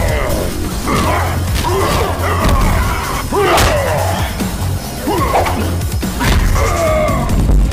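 Dramatic background music with a heavy bass beat, overlaid with repeated bending, voice-like growls and cries and a few thumps, the sound effects of a staged action-figure fight.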